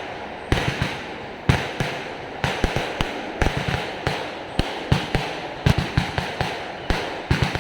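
Fireworks and firecrackers going off in a rapid, irregular string of sharp bangs, two or three a second, with crackling between them.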